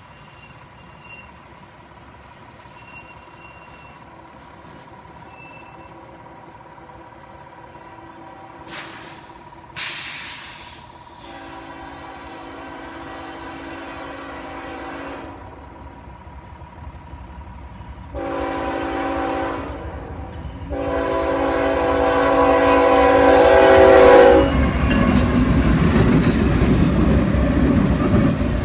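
Norfolk Southern freight train approaching and sounding its locomotive air horn in three long blasts, each louder than the one before. Near the end the locomotive and train pass close by with a loud rumble. Two brief rushing noises come about a third of the way in.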